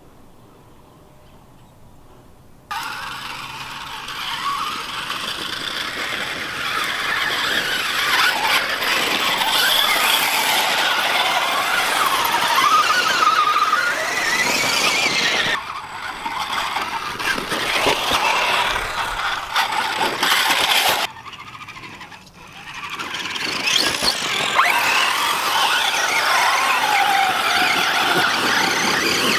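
Electric motors and geared drivetrains of 2.2-scale RC rock crawlers whining, the pitch rising and falling as the rigs climb dirt slopes. It starts suddenly about three seconds in and drops out briefly twice, once about halfway through and again a few seconds later.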